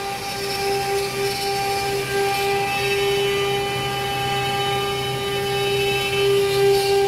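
CNC router spindle running with a steady high whine that holds one pitch throughout.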